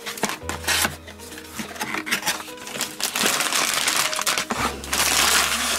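Plastic bags of LEGO pieces crinkling and rustling as they are handled, with many small clicks of parts shifting inside, growing louder and busier in the second half. Background music plays underneath.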